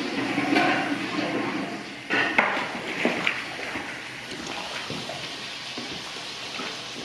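Meat broth boiling hard in a large steel cauldron, a steady bubbling rush. About two seconds in, a long-handled paddle starts stirring the pot, scraping and knocking against the metal a few times over the quieter simmer.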